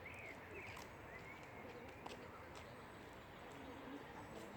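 Faint outdoor ambience with small birds giving short chirps every second or so over a steady background hiss.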